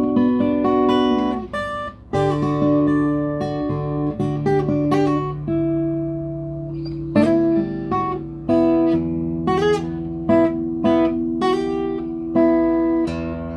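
Guitar playing: a steady run of single plucked notes over held low notes.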